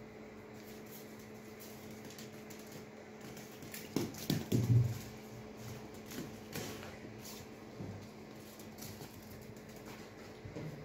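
Light knocks and taps of a small ball and a cat's paws on a tile floor as the cat bats the ball about, with a loud cluster of knocks about four seconds in and a few lighter taps after. A steady low hum runs underneath.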